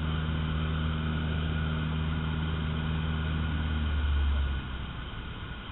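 Cessna 152's four-cylinder engine and propeller droning steadily, heard inside the cockpit, then the engine note drops away suddenly about four and a half seconds in as power comes off, leaving mostly the rush of air over the airframe.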